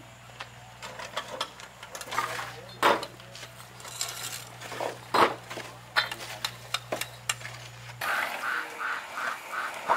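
Scattered light knocks and clinks of hard objects over a steady low hum. About eight seconds in, the hum stops and a quick, evenly repeated high pulse, about four a second, takes over.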